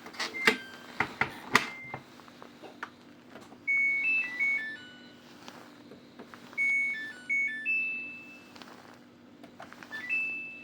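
Samsung washing machine control panel beeping: a string of sharp button-press clicks and short beeps in the first two seconds, then two short stepped beep tunes about four and seven seconds in, and a rising beep near the end.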